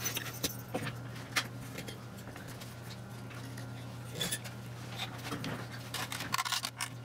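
Scattered small clicks and taps of a circuit board and its parts being handled, a little busier near the end, over a steady low hum.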